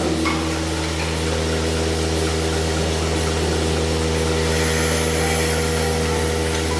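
Dairy milking-system pump running with a steady, unchanging hum, moving milk out through the pipeline.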